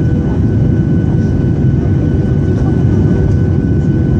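Steady cabin noise inside a Boeing 737-800 on approach: the deep rushing roar of its CFM56-7B turbofans and the airflow, with a faint steady whine over it.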